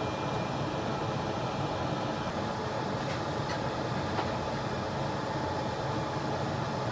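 Steady whirring background noise, like a running fan, with a faint hum mixed in and a few faint ticks in the middle.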